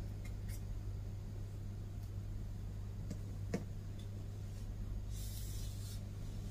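Hands handling and pulling a section of long hair, giving faint scratchy rubbing and a few small clicks, with a hiss lasting about a second near the five-second mark. A steady low hum lies under it all.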